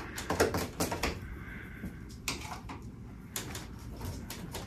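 Scattered light clicks and taps of a flat screwdriver prying and scraping at the metal tabs and edges of a wooden crate lid.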